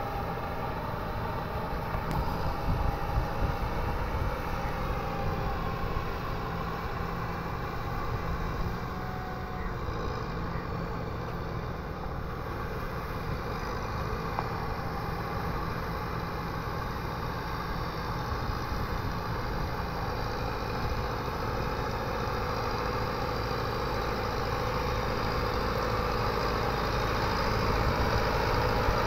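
Kubota MU5501 4WD tractor's diesel engine running steadily as the tractor works a rotavator through flooded paddy mud. It grows louder near the end as the tractor comes closer.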